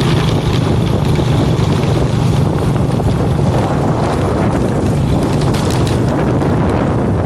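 A small engine running steadily with a constant low hum, while wind buffets the microphone.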